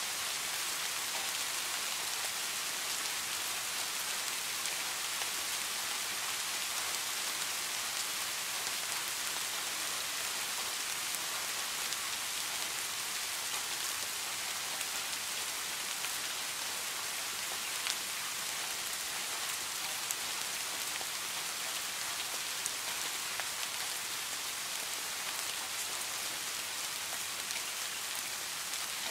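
Steady rain falling, an even hiss, with a few sharper drip ticks in the second half.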